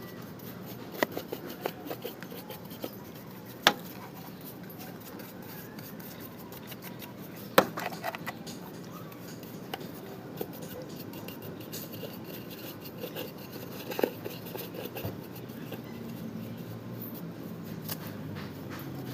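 Hands working on a small plastic satellite speaker during its restoration: rubbing and scraping with scattered sharp clicks and knocks, three of them louder, about 4, 7.5 and 14 seconds in.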